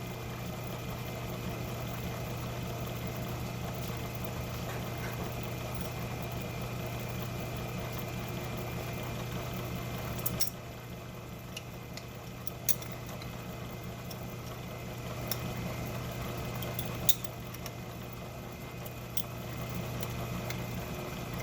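Metalworking lathe running steadily, its motor and gearing giving an even hum. About halfway the sound drops a little, and a few sharp clicks follow.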